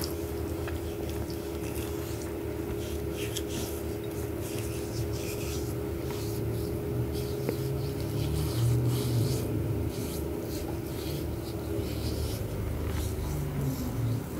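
Fingers spreading a thick turmeric paste face mask over the skin: soft, irregular scratchy rubbing over a steady background hum, with a low rumble that swells about eight seconds in.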